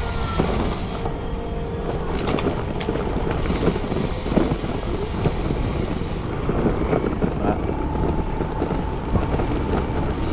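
Wind rushing over the action camera's microphone along with the rumble and knocks of a road bike rolling over a rough dirt and brick-paved lane at low speed.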